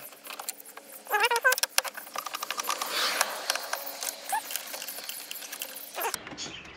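Dense clicking and metallic rattling of hand tools and fasteners while car dashboard trim is being unscrewed, with a brief warbling pitched squeak about a second in.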